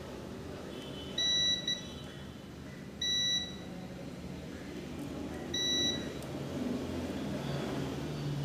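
Digital multimeter in continuity mode beeping three times, each a short high-pitched beep about half a second long, as the probes touch the pins of a power MOSFET. The beep signals continuity: a short across the MOSFET.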